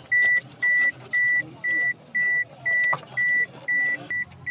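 Electronic beeper sounding one high steady tone in short, evenly spaced beeps, about two a second.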